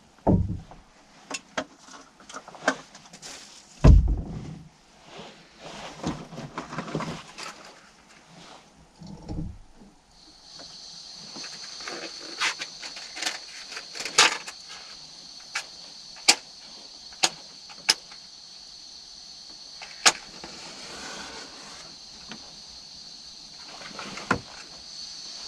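Objects being handled: scattered sharp clicks and knocks, with dull thumps about a second in and again about four seconds in. From about ten seconds in a steady high-pitched hiss runs under the clicks.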